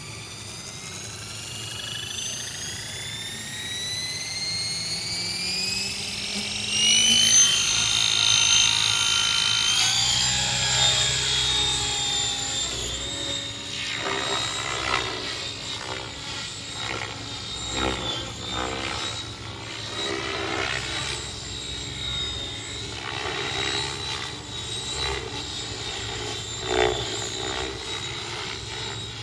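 Align T-Rex 700E electric RC helicopter in aerobatic flight: a whine that rises over the first seven seconds, then a wavering whine and rotor-blade whoosh that swell and pulse as the helicopter manoeuvres.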